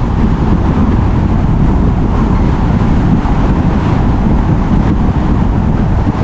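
Strong gusting wind buffeting the microphone: a loud, steady, low rumbling roar.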